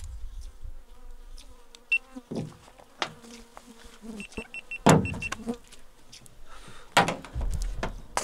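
Sharp knocks and rustles of gear being handled, with an insect buzzing close by for a second or so. Near the middle comes a quick run of short, evenly spaced high chirps.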